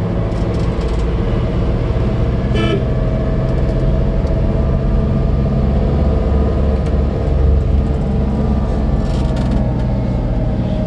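Road vehicle engine and road noise running steadily, with one short horn toot about three seconds in.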